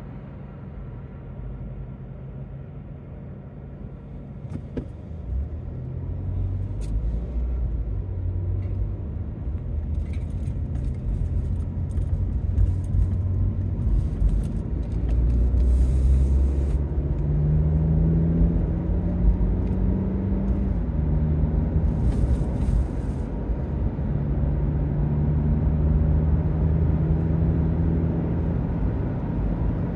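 Car engine and road rumble heard from inside the cabin as the car pulls away and speeds up, growing louder after a few seconds. The engine note climbs, drops back about two-thirds of the way through, then holds steady at cruising speed.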